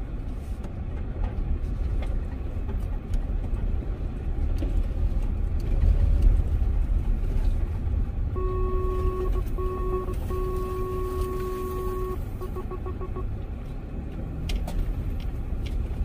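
Car driving slowly over a bumpy dirt track, heard from inside the cabin: a low rumble of engine and tyres with scattered knocks from ruts and stones. About eight seconds in, an in-car electronic warning beep sounds for several seconds, first in long unbroken stretches and then as a run of quick short beeps.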